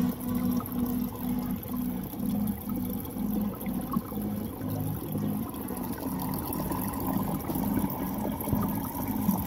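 Water pouring steadily from a pipe inlet into a partly filled plastic tank, splashing into the standing water.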